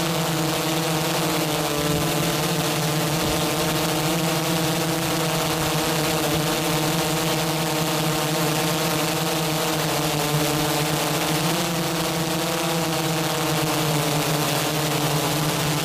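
Small remotely piloted aircraft's (drone's) motors and propellers humming steadily, heard from its own on-board camera, the pitch wavering slightly a couple of times as it holds and shifts position.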